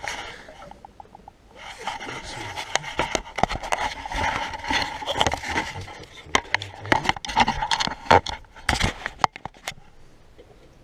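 Irregular scraping and rustling with many sharp knocks and clicks, from the camera and hands moving about the pump housing. It grows louder about two seconds in and dies down near the end.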